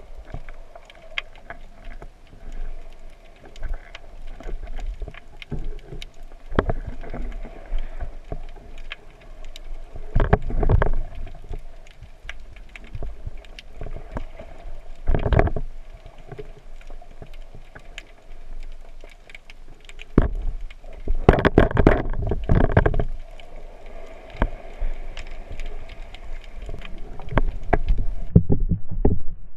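Underwater wave surge in shallow water, heard as a low rumble with many small clicks and crackles. The surge swells louder several times, longest about two-thirds of the way in.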